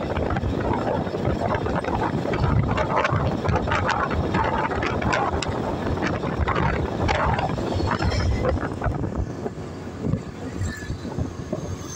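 Wind buffeting the microphone over the running engine and road noise of a motorbike being ridden, a little quieter over the last few seconds.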